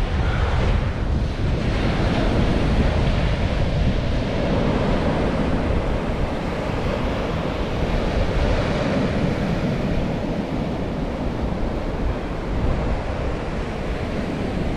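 Rough surf breaking steadily on a sandy beach, with strong wind buffeting the microphone.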